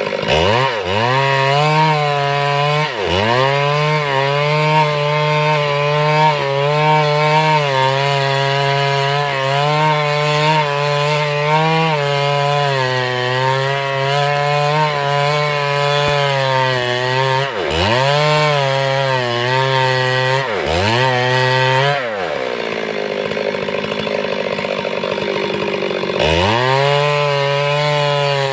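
Stihl MS 382 two-stroke chainsaw milling a log into planks, running at high revs through a lengthwise cut. The engine pitch dips and climbs back several times as the throttle is eased and squeezed again. Near the end it falls to a lower idle for about four seconds, then revs back up.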